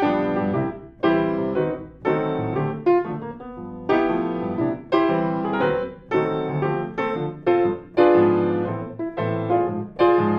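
Grand piano played solo, chords struck about once or twice a second and left to ring, recorded close up with a stereo pair of AKG C414XLII condenser microphones set to cardioid.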